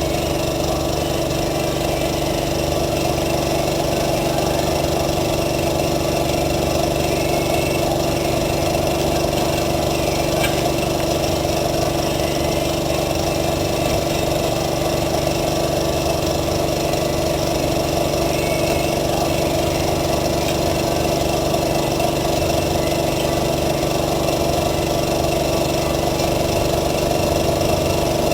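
A motor or engine running steadily, with a constant hum that holds one pitch and never changes.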